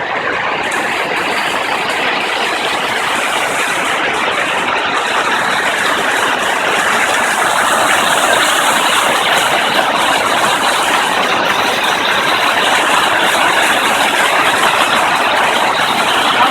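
Steady rush of falling water, a waterfall or cascade, getting slightly louder toward the end.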